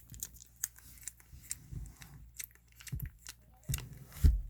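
Handling noise as the camera and puppy are moved about at close range: scattered soft clicks and rustling with several dull thumps, the loudest near the end.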